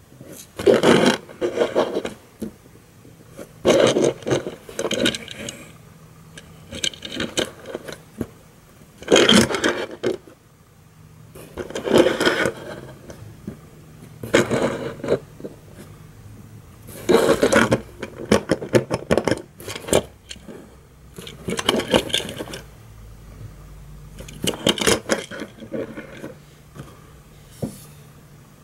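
Handling noises: about a dozen short bursts of scraping and rubbing as a Tomica die-cast toy car is turned and pushed about on a tabletop, some of them a quick rattle of little ticks like small plastic wheels rolling.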